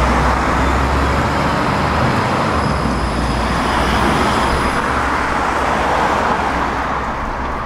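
Electric tram pulling into a stop and rolling alongside, mixed with steady road traffic. A faint high whine fades out about five seconds in.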